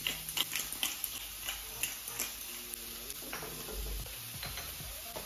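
Chopped onion sizzling in a non-stick frying pan with olive oil, with a string of light irregular clicks and taps that are thickest in the first two seconds.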